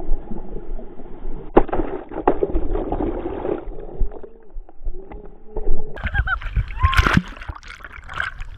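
Ocean surf sloshing and splashing around a waterproof action camera. The sound is muffled and dull for the first half, then brighter, sharper splashes begin about six seconds in.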